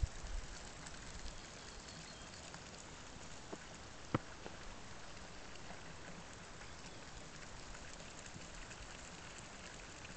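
Faint, steady outdoor hiss with a few small clicks, the sharpest about four seconds in.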